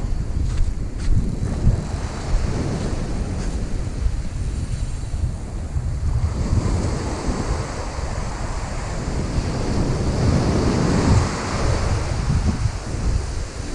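Ocean surf washing up a sand beach, its foam hissing in a wash that swells up about halfway through, with wind buffeting the microphone.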